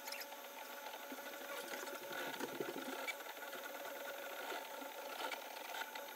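Entina Tina2S desktop 3D printer printing, its stepper motors whirring with steady whining tones as the print head and bed move.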